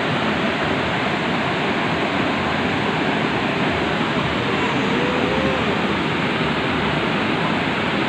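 Steady rush of water at a waterfall and its shallow stream, an even hiss with no breaks. A faint voice is heard briefly about halfway through.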